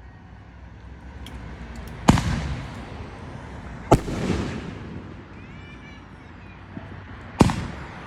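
Aerial fireworks bursting: three loud bangs about two seconds apart, the first two trailing off in a rumble.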